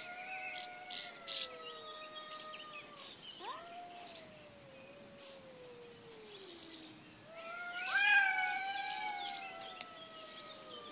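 Cats caterwauling at each other in a fight standoff: long, drawn-out yowls that rise and then slowly sink in pitch, one after another. Two voices overlap at first, and the loudest yowl swells up about eight seconds in.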